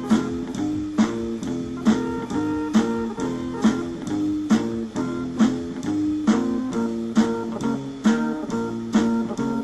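Music: a plucked guitar playing a repeating rhythmic figure, accented about once a second.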